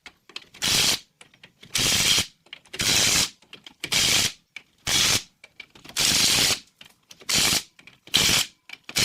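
Hand ratchet clicking in nine half-second runs, about one a second, as it tightens the nuts on new rear U-bolts of a 1997 Chevy 1500's axle.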